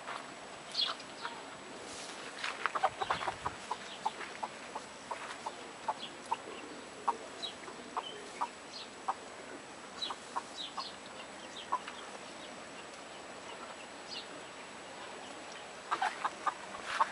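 Chickens clucking: scattered short calls, busiest a couple of seconds in and again near the end.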